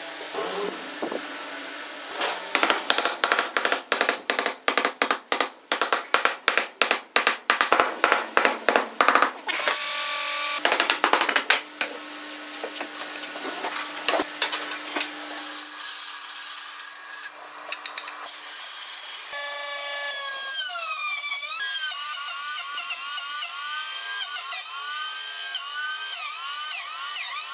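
A rapid series of sharp knocks for several seconds, then, in the last third, an electric router cutting wood on a router table, its whine dipping and recovering again and again as the board is fed through.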